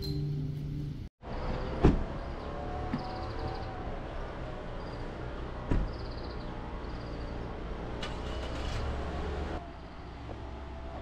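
Background music cuts off about a second in, giving way to steady outdoor traffic ambience with a low rumble. Two sharp knocks are heard, the first the loudest, with faint high chirps, and the ambience turns quieter near the end.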